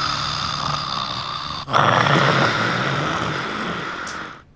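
A woman snoring heavily: two long snores, the first breaking off about one and a half seconds in, the second fading away near the end.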